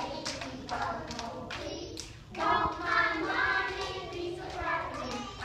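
A group of young children singing together, with scattered hand claps.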